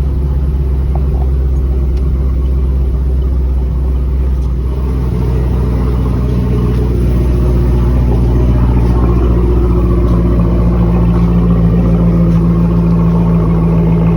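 2010 Chevrolet Camaro engine running steadily at idle. Its pitch shifts slightly about five seconds in, and it grows a little louder from about eight seconds.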